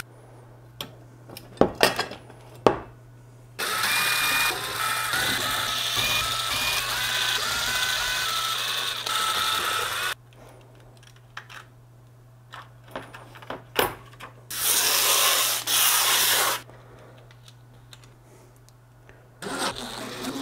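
Cordless DeWalt power driver running in bursts as it backs out the small screws of a resin printer vat's film-clamping frame. The first run lasts about six seconds, its whine shifting in pitch as it goes, and a shorter run of about two seconds follows later. Sharp clicks and taps from the screws and the tool being handled fall between the runs.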